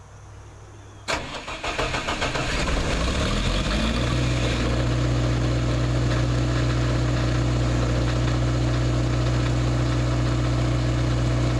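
21 kW diesel generator starting on its automatic start sequence: the engine cranks about a second in, catches and rises in pitch, and by about four seconds settles into steady running at a constant speed.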